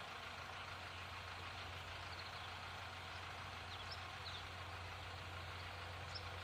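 Faint, steady background of distant road traffic with a constant low hum, and a few faint short high chirps.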